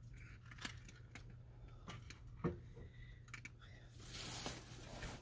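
Light scattered clicks and small rustles of dog treats being handled from a small metal dish, over a steady low hum. A louder rustle sets in about four seconds in.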